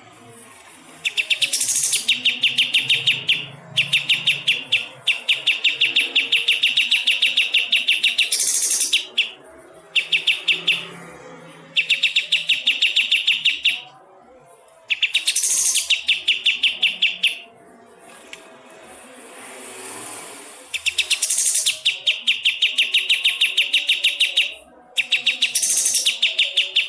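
Kapas tembak songbird giving its 'besetan' call: rapid runs of sharp, clear notes, about eight a second, in repeated bursts of a few seconds with short pauses between.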